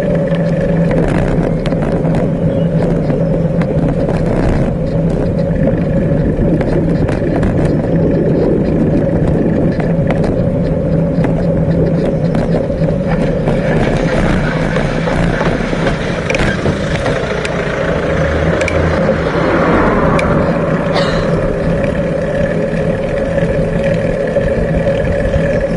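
Rolling noise of a bicycle ridden over paths and pavement, picked up by a camera mounted on the bike: a steady rumble with a constant hum and scattered rattling clicks over bumps.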